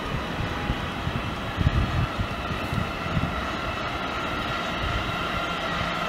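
Siemens Vectron electric locomotive approaching slowly at the head of a container train: a steady drone with a faint held tone and uneven low rumbling.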